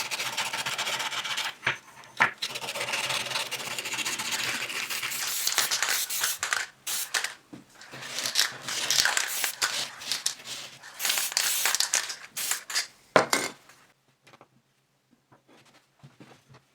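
A small piece of wood being worked by hand with an abrasive, giving irregular rubbing and scraping strokes. There is a sharp knock about two seconds in and another about thirteen seconds in, and the work stops about fourteen seconds in.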